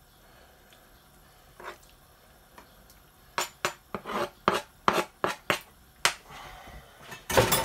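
Plastic chopping board being scraped by hand as raw fish pieces are pushed off it into a pan of sauce: a quick run of short scrapes, about two a second, starting about three seconds in and loudest near the end.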